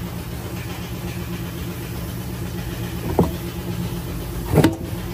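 A vehicle engine idling steadily, with two sharp knocks about three and four and a half seconds in as the truck's air-filter cover and element are handled.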